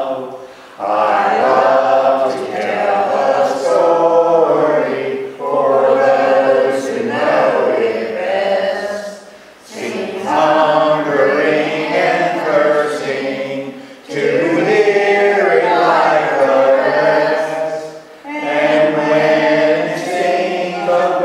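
A small group of people singing a hymn together. The hymn comes in phrases of about four seconds, with a brief pause for breath between each.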